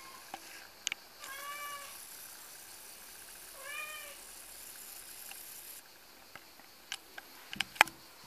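Kitten meowing twice, about two seconds apart, each call rising then falling in pitch. Near the end comes a scatter of sharp taps and knocks, the loudest just before the close.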